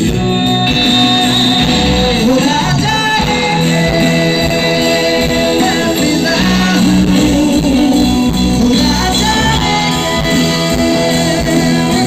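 Live stage music: a woman singing with band accompaniment, with sustained held notes and a few sliding vocal phrases.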